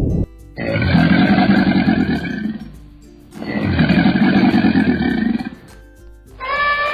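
A big cat roaring: two long, loud roars of about two seconds each, with a short pause between them.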